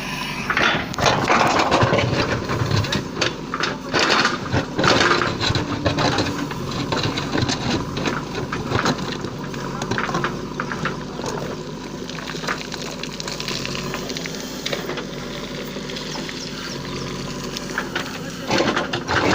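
JCB 3DX backhoe loader's diesel engine running steadily, with irregular knocks and clatter, most frequent in the first few seconds.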